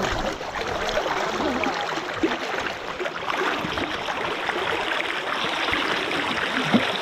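Fast river current rushing and gurgling close to the microphone, a steady churning water noise.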